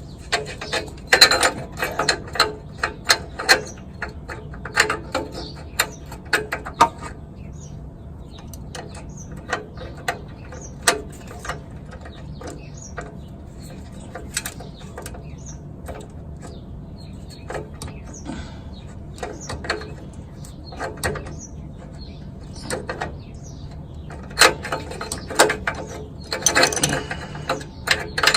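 Hand ratchet clicking in short runs as a new oxygen sensor is worked tight in the exhaust with a sensor socket, the runs densest in the first several seconds and again near the end.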